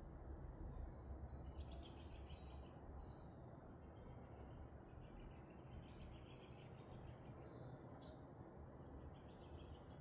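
Faint birdsong in the background, three short trilling phrases a few seconds apart, over a low steady outdoor rumble.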